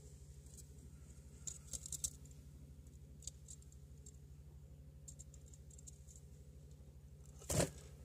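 Budgerigars moving about in a wire cage with a clay-pot nest: scattered faint clicks and scratches, and one louder brief rustle near the end, over a steady low hum.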